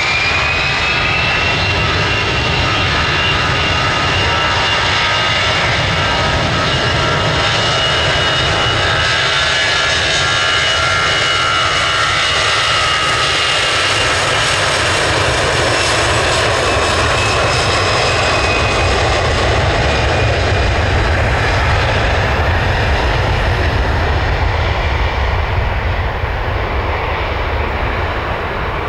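Airbus A320-200's CFM56 turbofan engines at takeoff thrust on the takeoff roll: a fan whine rises in pitch about a second in and then holds, over a steady jet roar. In the second half the whine fades and a deeper rumble takes over as the airliner accelerates away.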